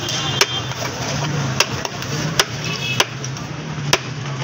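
Flat metal spatula knocking against a large metal serving tray as rice is scooped onto plates: five sharp knocks at uneven intervals, over background chatter and a steady low hum.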